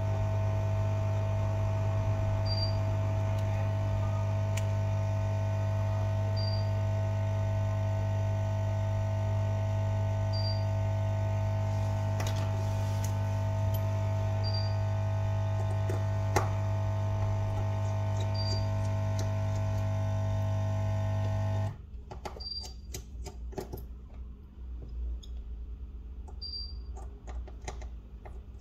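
A steady electrical hum, a low drone with a fixed mid-pitched tone over it, that cuts off abruptly about three-quarters of the way through. After it come light clicks and taps of hands and a plastic pry card on the opened phone, and a faint short beep recurs about every four seconds.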